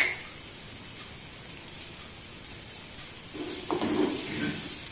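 Dried prawns and bilimbi frying in oil in a clay pot: a steady, quiet sizzle. From about three seconds in, a wooden spatula stirs and scrapes through the mix.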